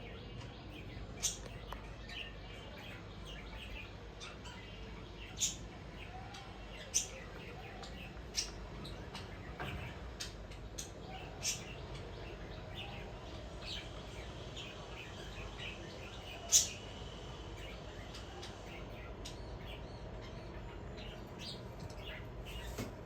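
Pet birds chirping: short, high chirps scattered irregularly, a few of them much louder than the rest.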